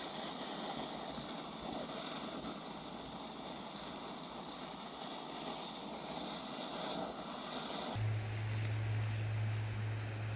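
Steady outdoor ambience: an even rushing noise with a steady high-pitched drone over it. About eight seconds in it changes abruptly to a steady low hum.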